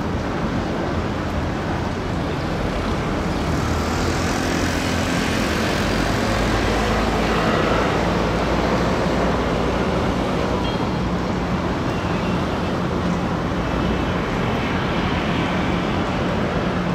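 Passenger ferry's engines running with a steady low rumble under a continuous hiss, unbroken as the ship moves slowly through the harbour.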